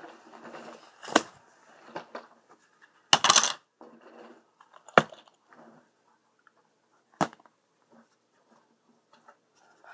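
Books and a spiral notebook being handled and set down on a stack: four sharp knocks, the second a longer clatter, with soft rustling between them.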